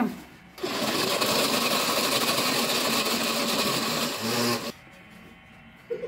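Red countertop blender running on ice and orange juice. It starts about half a second in, runs steadily for about four seconds, then is switched off. This blender has already given off smoke from the strain of crushing ice.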